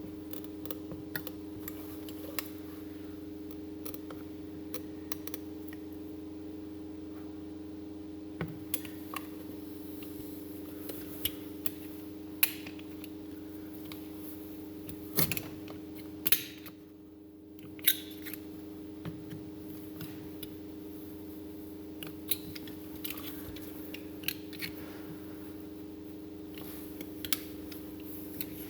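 Scattered sharp clicks and taps from handling and tool work on an Audi A8 ABS control module, over a steady electrical hum.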